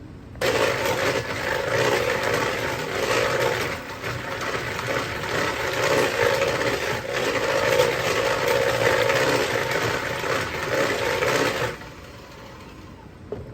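Electric mixer running in a big bowl of thin, liquid kugel batter of eggs, milk, sour cream and pudding. The motor starts about half a second in, runs steadily for about eleven seconds, then stops suddenly.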